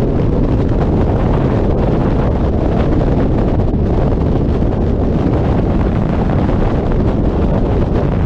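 Loud, steady wind buffeting the camera microphone, the rush of air in a skydiving freefall.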